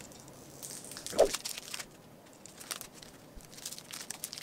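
Hockey trading cards being handled and shuffled by hand: glossy card stock rustling and ticking against each other and the table, with a sharp tap about a second in.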